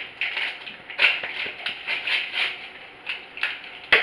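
Plastic-and-paper peel pouch of a 60 ml syringe crinkling and rustling in a run of short bursts as it is peeled open, with a sharper snap near the end.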